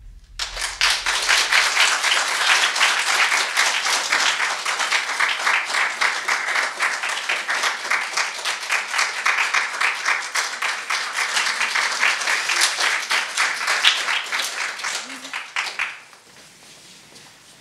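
Audience applauding, starting about half a second in and stopping fairly quickly near the end.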